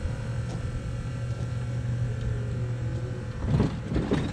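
Tilt hood of a Volvo VNL semi truck swung shut, landing with a loud clattering thump about three and a half seconds in, over a steady low engine hum.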